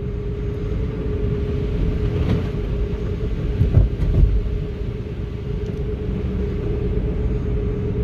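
Car road noise heard from inside the cabin while driving on a wet, slushy road: a steady low tyre rumble and hiss with a steady hum running under it, and a couple of heavier thumps about four seconds in.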